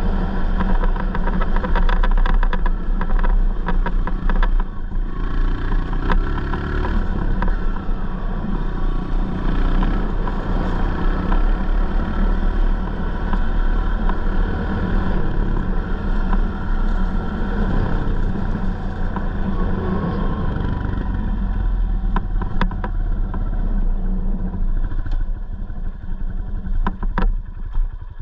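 Honda 125 dirt bike engine running while the bike is ridden, its pitch rising and falling with the throttle. A few sharp clicks or knocks come near the end.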